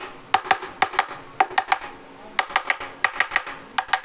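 Quick, light tapping blows in short irregular bursts, about fifteen in all, seating the armature plate into the engine casing of a Hero Deluxe motorcycle.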